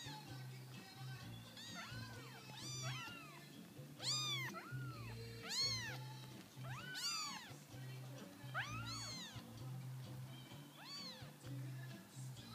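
Newborn lilac bicolor Ragdoll kittens mewing again and again, each mew a high call that rises and falls in pitch, several overlapping; the loudest come about four and six seconds in.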